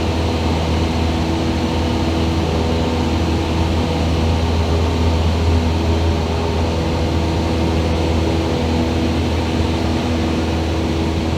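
Cessna 172 light aircraft's piston engine and propeller running steadily at high power, a loud, even drone.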